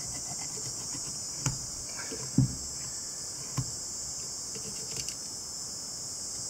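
A few scattered clicks and knocks of hand tools on a rubber heater-coolant hose as it is worked on for cutting, the loudest a little over two seconds in, over a steady high-pitched hiss.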